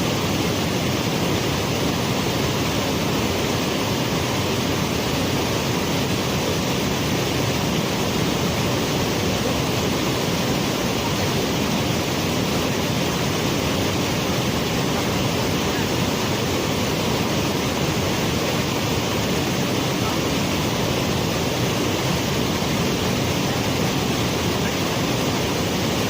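Waterfall: water pouring over rocks, a loud, steady, unbroken rush.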